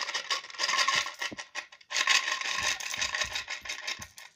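Coins rattling and clinking inside a money box as it is shaken: two long spells of jangling with a short break just before two seconds in, loud enough to hurt the ears.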